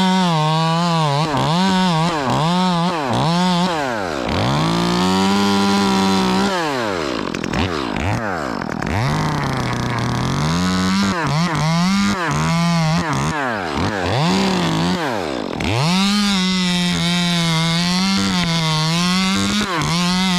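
Chainsaw running at high revs and cutting, its pitch wavering up and down about once a second under load. The throttle drops off and picks up again a few times.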